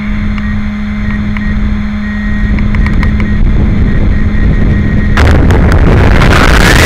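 Onboard microphone of a Wltoys K959 brushless RC buggy. A steady low hum plays while the car sits still. About five seconds in, a sudden loud rush of wind and road noise comes in as it launches on a full-throttle speed run, with a rising motor whine under it.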